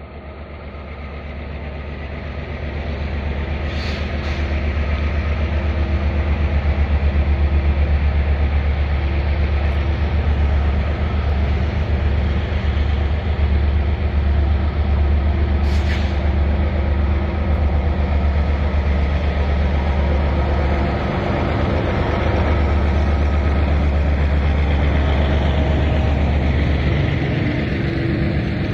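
Diesel-electric freight locomotive pulling a train away and past, its engine running with a loud, steady low hum that grows louder over the first several seconds as it approaches, then holds as the wagons roll by. There are two short hissing sounds, about 4 and 16 seconds in.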